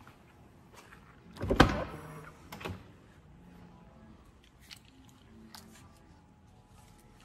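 Ferrari 360 Spider's driver door unlatching and swinging open, with one loud clunk about a second and a half in and a smaller knock about a second later. Faint clicks and handling noises follow.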